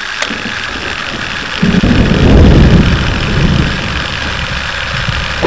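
A heavy engine rumbling over a steady hiss, the deep low rumble swelling in about a second and a half in and easing off toward the end.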